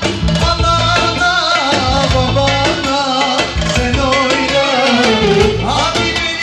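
Amplified live band music: keyboard and drums playing a dance tune, a wavering lead melody over a steady beat.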